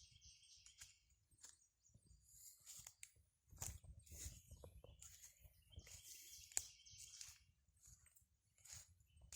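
Faint footsteps through wet brush and leaf litter: irregular crackles and snaps with soft low thumps, and a few short spells of faint high chirping.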